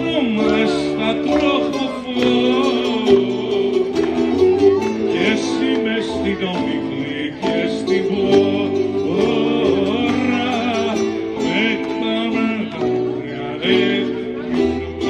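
A man singing a Greek song over plucked-string accompaniment, with the voice wavering and gliding over held instrumental notes.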